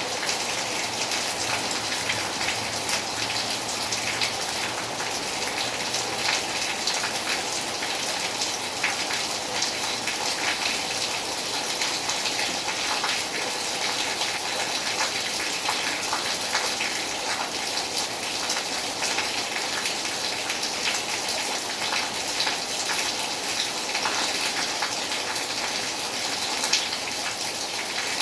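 Steady summer rain falling, with many individual drops ticking on surfaces within an even hiss.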